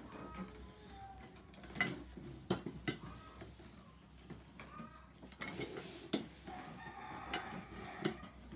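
Chickens clucking off and on, with a longer call about seven seconds in, and a few sharp knocks from the heavy flat iron and wooden hat blocks being worked on the bench.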